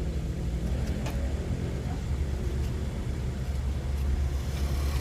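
A vehicle engine running steadily at idle, a low rumble, with a few faint metallic clicks over it.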